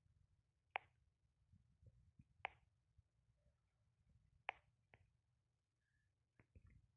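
Near silence broken by sharp clicks from fingers tapping and handling the phone: three louder ones about two seconds apart, then a few fainter ones near the end.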